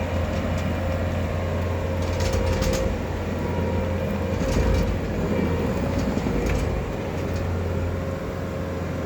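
Bobcat T650 skid steer's diesel engine running steadily under working load, with a few short rattles and clanks about two, four and a half and six and a half seconds in.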